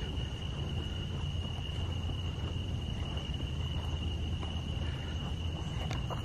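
Night insects, crickets, trilling in one steady high-pitched drone, over a low rumble of footsteps and handling noise while walking.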